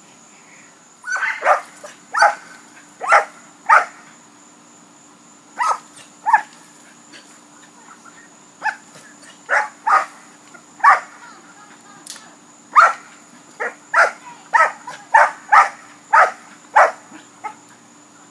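A dog barking: about twenty sharp barks, mostly single or in quick pairs, coming in bunches with pauses of a second or two between them.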